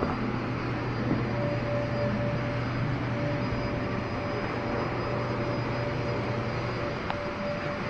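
Steady hum of a running CNC machine, a low drone with a fainter higher tone over an even whir. About seven seconds in there is a single click and the low drone drops out.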